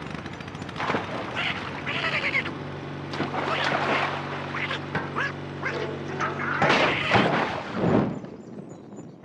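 Donald Duck's garbled, quacking cartoon voice chattering and squawking, over a steady low hum from about three seconds in. Near the end there is a louder rush as flames flare up around the houseboat.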